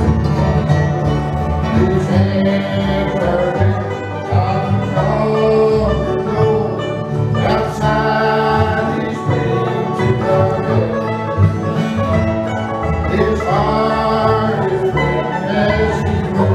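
Bluegrass band playing live: acoustic guitar strumming a steady beat over an upright bass line, with banjo and a bending melody line on top.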